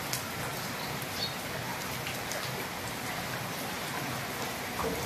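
Steady rain falling on a paved courtyard and potted plants, an even hiss with a few sharp ticks scattered through it.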